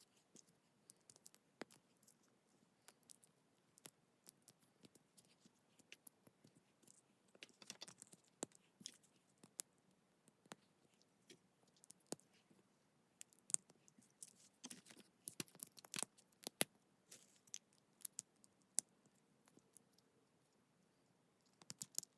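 Lego bricks being handled and pressed together: faint, scattered clicks and taps with small rustles, busiest in the middle stretch.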